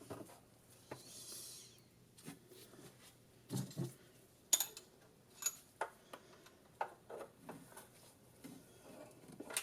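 Scattered small clicks and taps of hand tools and a feeler gauge on the rocker arms while valve clearance is being set on a golf cart engine. A couple of duller knocks come near the middle.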